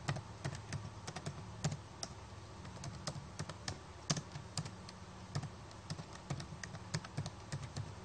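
Typing on a computer keyboard: irregular, quick key clicks, several a second, as a line of text is typed.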